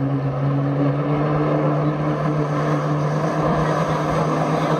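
Jet ski engine running at a steady pitch as it pumps water through the hose to a flyboard, lifting the rider out of the water.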